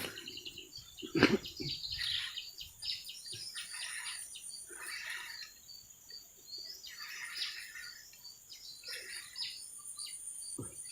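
Birds chirping and calling again and again over a steady high-pitched whine, with one sharp knock about a second in.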